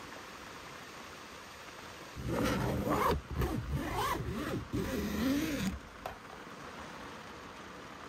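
Steady rush of a nearby valley stream, and from about two seconds in a drawn-out, wordless vocal sound from a person that rises and falls in pitch for about three and a half seconds.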